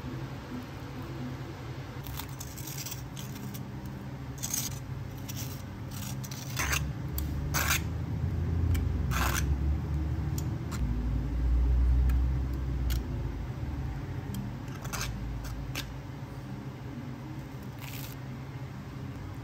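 Cafe counter work: scattered sharp clicks and taps of utensils and containers being handled over a steady machine hum. A louder low rumble builds from about seven seconds in and fades out near thirteen seconds.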